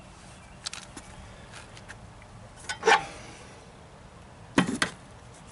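Handling noise: a few light clicks and knocks, with louder ones about three seconds in and near the end, over low steady background noise.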